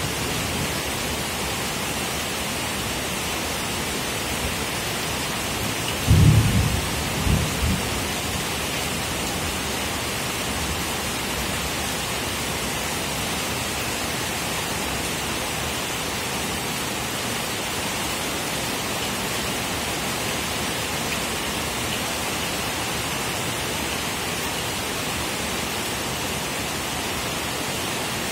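Steady heavy rain hissing, with a low rumble of thunder about six seconds in that comes in two or three pulses over roughly two seconds.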